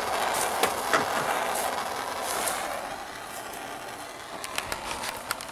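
Hand-held propane torch burning with a steady hissing rush, dropping in level about halfway through, as it preheats the axle housing where the tube meets the differential before welding.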